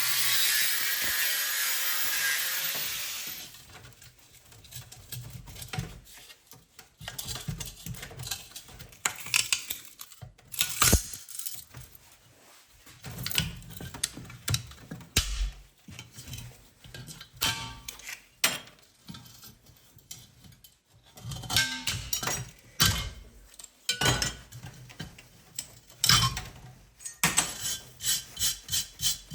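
Hand work on the metal parts of a gas-forge stand. A steady tool noise stops about three and a half seconds in. Then come scattered clicks, clanks and short scrapes of metal parts being handled and fitted, ending in a quick run of strokes.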